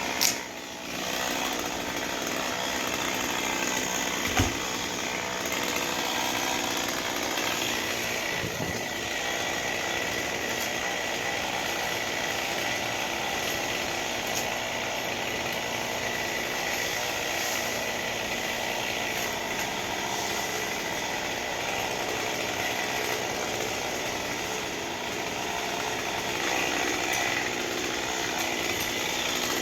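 Chainsaw running steadily while cutting up a small pine tree. Two sharp knocks stand out, one right at the start and one about four seconds in.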